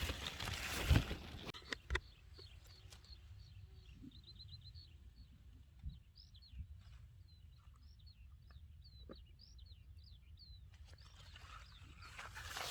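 A small songbird singing a long run of quick, high chirping notes. There is rustling with a few knocks in the first two seconds, and rustling again near the end.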